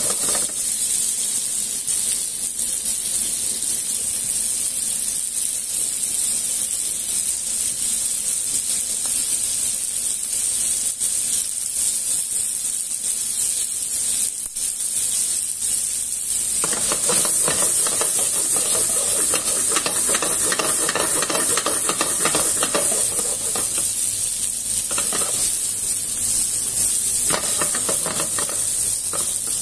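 Chicken pieces and small sausages sizzling in oil in a frying pan, a steady high hiss. Past the middle a lower, crackling sound joins for about six seconds.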